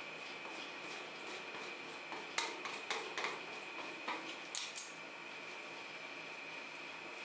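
Metal spatulas and a scraper clicking and scraping on the steel cold plate of a rolled ice cream pan, in a cluster of sharp clicks about two to five seconds in. A steady high-pitched whine runs underneath.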